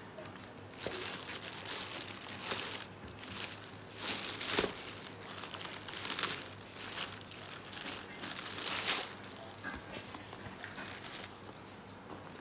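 Clear plastic poly bag crinkling and rustling as hands pull a bag out of it, in irregular bursts that start about a second in and stop near the end.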